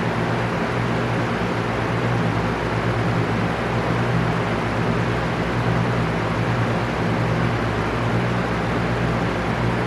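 Electric fan running steadily: an even rushing noise of moving air with a low, constant hum underneath.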